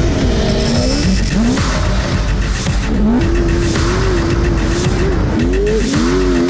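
Electronic music mixed with an off-road race buggy's engine revving, its pitch rising several times, over a steady rumble of engine and tyre noise.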